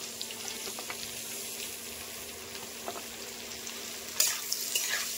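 Sliced onions sizzling as they fry in hot oil and butter in a steel kadhai, a steady hiss. About four seconds in, a spatula scrapes and clinks against the pan as the onions are stirred.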